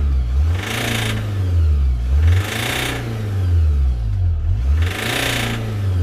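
2009 Honda Accord 2.2 i-DTEC four-cylinder diesel engine revved up and let back down about three times, turning harsh and knocking at each peak. It sounds like a bottom-end bearing knock but is a fuelling fault, which a mechanic traced to the injectors.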